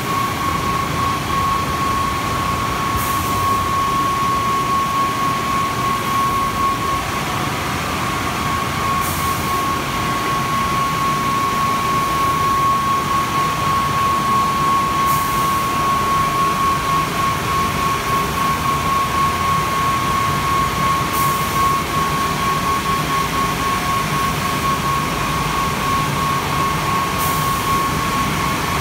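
Kärcher CBC rollover car wash's drying blowers running steadily over a car, an even roar with a steady high whine. A faint hiss repeats about every six seconds.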